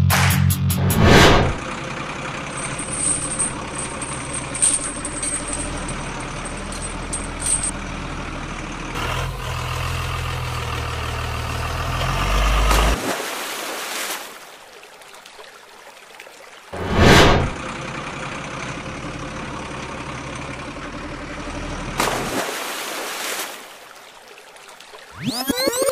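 Truck engine sound running steadily for about twelve seconds, then dropping away. One loud sudden noise comes about seventeen seconds in, followed by more steady engine sound. Brief music plays at the start and the end.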